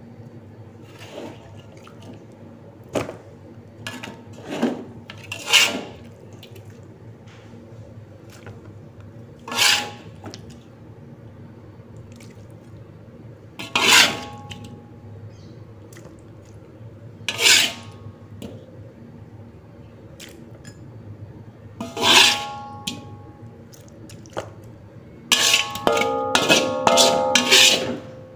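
A utensil scraping and knocking against a wok as cooked food is scooped out, in single strokes every few seconds, then a quicker run of clanks with metallic ringing near the end.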